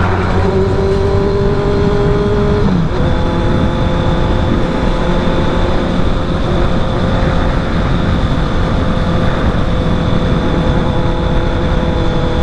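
Honda CB650R's inline-four engine running through an aftermarket Villain R11 full exhaust while riding at a steady pace. The engine note shifts briefly about three seconds in.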